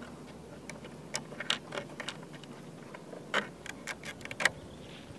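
Small, irregular clicks and taps from hands working wires into the terminal block and cable glands of a plastic gate-opener control box, a few sharper ones near the end.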